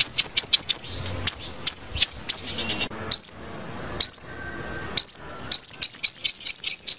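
Sunbird calling: a series of sharp, high chirps, each sweeping quickly upward. They come in quick runs of several a second, slow to a few single chirps with short gaps around the middle, then speed up again.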